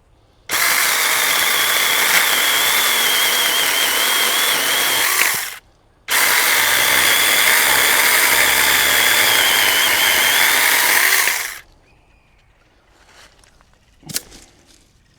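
Saker mini battery-powered 4-inch chainsaw running through a branch in two runs of about five seconds each with a brief pause between. Its high electric motor whine sags and wavers as the chain bites into the wood, then it stops abruptly; a single short knock follows near the end.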